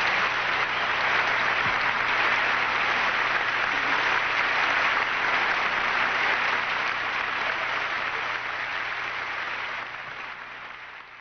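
Concert audience applauding steadily at the end of a song, fading away over the last few seconds.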